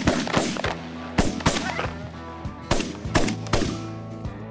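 A volley of shotgun fire from several hunters shooting at a flock of Canada geese: about seven sharp shots, close together and irregularly spaced, ending about three and a half seconds in. Background music plays underneath and comes to the fore near the end.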